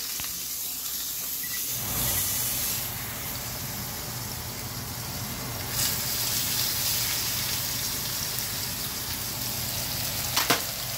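Steaks sizzling in hot oil in a frying pan. The sizzle starts suddenly about two seconds in as the first steak goes in, and grows louder around six seconds in as the second steak is laid beside it. A brief knock near the end.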